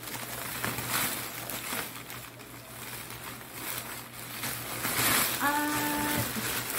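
Thin plastic shopping bag crinkling and rustling as hands dig through it. Near the end, a voice holds a short hummed note for about a second.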